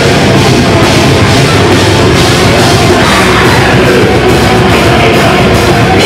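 Live metal band playing loud and dense without a break: distorted electric guitar, drum kit and shouted vocals. A falling pitch slide runs through the middle.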